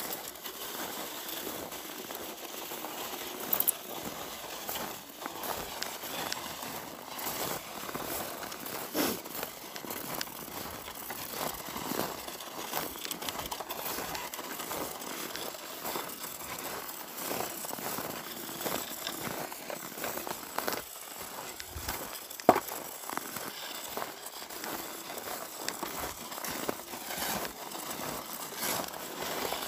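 Footsteps crunching on packed snow in an irregular crackling patter, with two sharper clicks, one a few seconds in and one about two-thirds of the way through.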